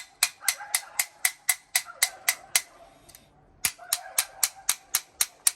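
Rapid, light taps on a corroded nut and bolt, about four a second, pausing for about a second midway, struck to break up the rust so the fitting can be unscrewed.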